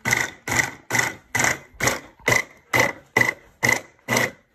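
MegaWise immersion blender motor driving its mini chopper blade through onions, pulsed on and off in short bursts about twice a second.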